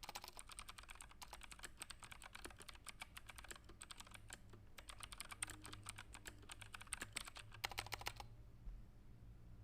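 Fast, continuous typing on a computer keyboard, a rapid run of key clicks that stops about eight seconds in, leaving a faint low hum.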